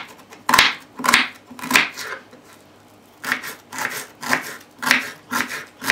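Kitchen knife slicing an onion on a wooden cutting board: a series of sharp knocks as the blade strikes the board, about two a second, with a pause of about a second midway.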